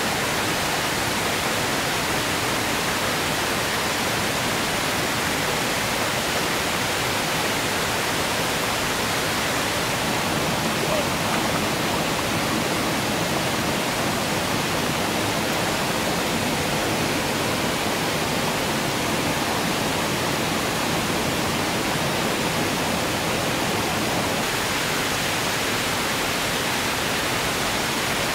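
Steady rush of a forest stream running over rocks, an even hiss that does not change.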